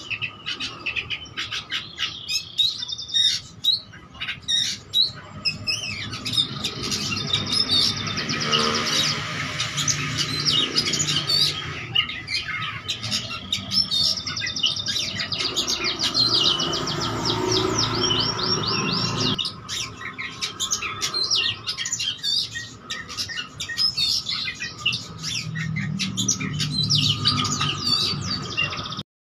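Oriental magpie-robin (kacer) singing continuously, a loud, fast, varied song of whistles, chirps and rapid trills strung with mimicked calls ("isian"). A low rumble sits under the song through the middle part.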